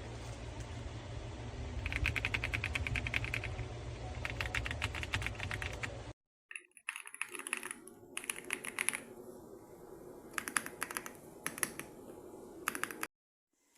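Typing on a Royal Kludge RK R75 mechanical keyboard: fast runs of key clicks, then after a brief gap a second stretch of sparser keystrokes in short bursts.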